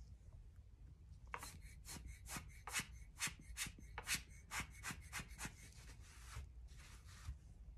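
Quick, faint puffs of air from a hand-squeezed rubber bulb blower, about three or four a second, blowing wet alcohol ink and blending solution outward across the panel, with a few softer, longer puffs near the end.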